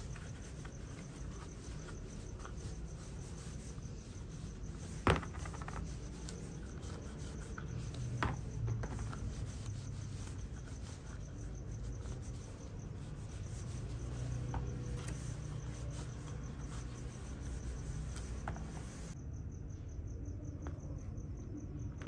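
Steady low room hum with a faint, high, pulsing tone throughout, broken by a few light knocks from small RC car parts being handled on the bench. The loudest is one sharp knock about five seconds in.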